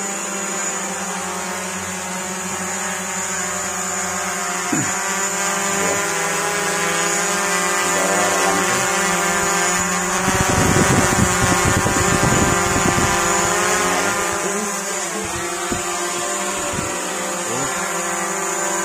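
MJX Bugs B4W brushless quadcopter hovering in place, its four propellers making a steady multi-tone buzz whose pitch shifts a little as the motors adjust. About ten seconds in it gets louder for some four seconds, with a low rushing noise, as it is close overhead.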